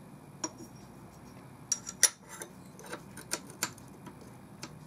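Light metallic clicks and taps, about eight at uneven intervals, as a small steel angle and a steel square are handled and pressed against a steel frame stretcher.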